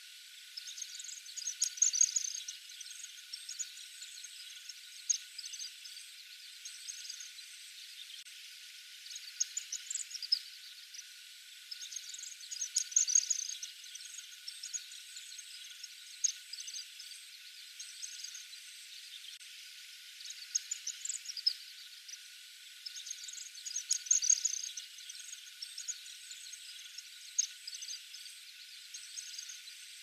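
White-throated needletails calling: repeated bursts of high, thin twittering chirps every few seconds over a steady hiss.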